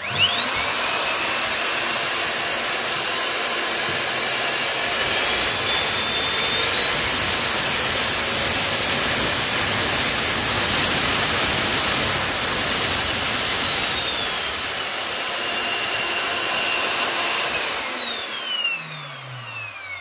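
Replacement vacuum cleaner motor, run out of its housing through the Miele C3's electronic speed controller, spins up quickly to a loud whine. It is stepped up in speed about five seconds in and again a little later, held at top speed, then brought back down, showing the controller regulating the new motor. It is switched off near the end and its whine falls away as it winds down.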